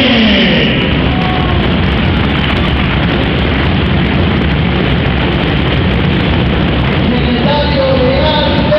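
Large crowd cheering and clapping, loud and dense. Group singing comes back in near the end.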